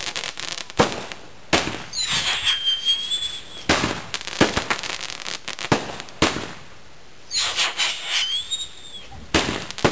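Consumer fireworks going off: a string of sharp bangs and crackles, with two whistles, one about two seconds in and one about seven seconds in, each a high shriek lasting about a second.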